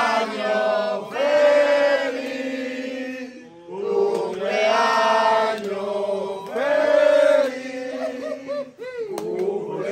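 A group of people singing a birthday song together, in phrases of held notes.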